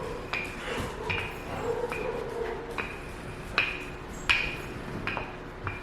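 Rolling pin rolling out dough on a countertop, giving a series of sharp clicks and knocks with a slight ring, roughly one a second.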